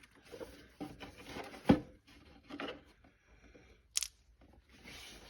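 Scattered handling noises of hand tools and parts during transmission filter seal work: light rustling and scraping, one sharp knock a little under two seconds in, and a short click about four seconds in.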